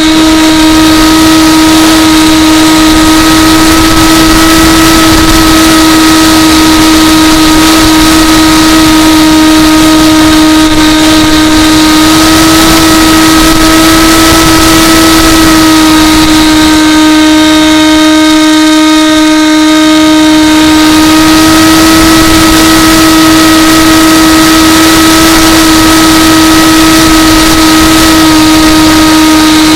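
Electric motor and propeller of an AXN Floater RC plane running at high throttle: a loud, steady whine. The upper overtones fade briefly partway through.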